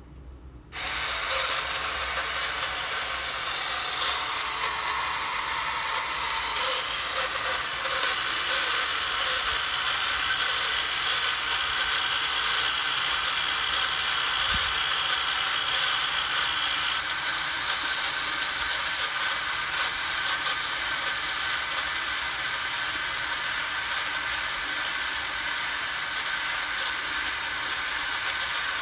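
Vintage tin toy convertible's small motor and gear train whirring steadily as it drives the folding roof up, starting suddenly about a second in.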